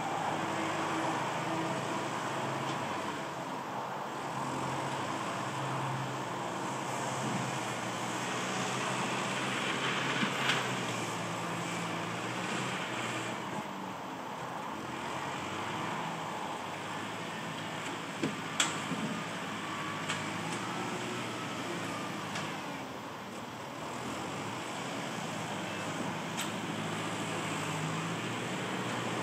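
Kubota MU5702 57-horsepower diesel tractor engine running steadily under load as it pulls a disc plough through dry, lumpy soil. There are a few sharp clacks, about ten seconds in and again around eighteen seconds in.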